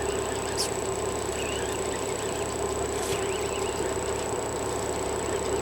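Fishing boat's engine running with a steady, even drone, with two faint ticks.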